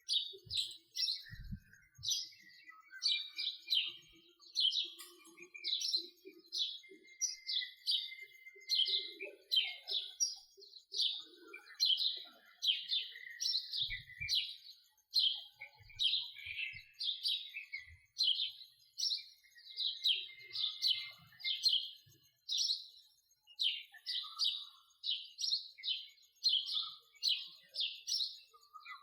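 House sparrow chirping over and over, a steady run of short, high chirps at about two a second.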